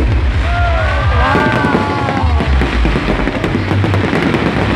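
Crackling fireworks, glittering white crackle bursts, over loud music with a heavy, shifting bass line. A few short, high sliding whistles sound between about one and two seconds in.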